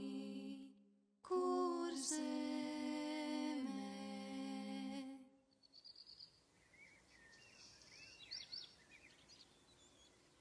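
Voices humming held chords, with a short break about a second in and a step down in pitch before they end about five seconds in. Afterwards, a few faint bird chirps over a low hiss.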